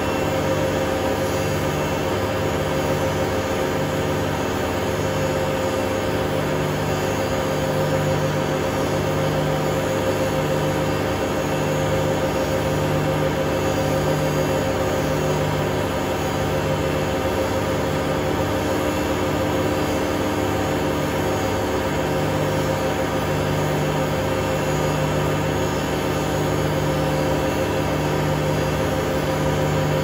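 Hotpoint Aquarius WMA32 washing machine in its spin cycle, the drum turning at high speed with a steady motor whine and hum. A low hum in the sound swells and fades about once a second.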